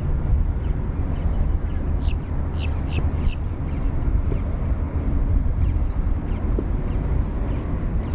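A bird calling five or so times in quick succession about two seconds in, short harsh high calls, over a steady low rumble.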